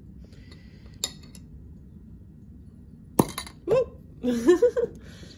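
A glass boiling tube clinks sharply against its glass beaker as it is lifted out. A few short, wavering squeaks follow over the next second and a half.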